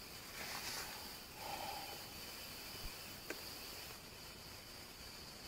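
Faint forest ambience: a steady high-pitched insect drone, with a couple of small clicks about three seconds in.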